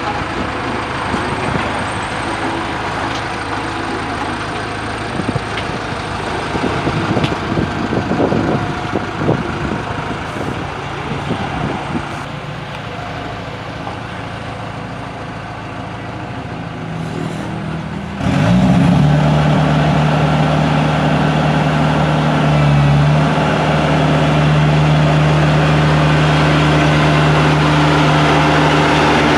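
Heavy construction machinery engines running, with scattered clanks and knocks in the first half. A little past halfway, an engine abruptly revs up to a much louder, steady drone.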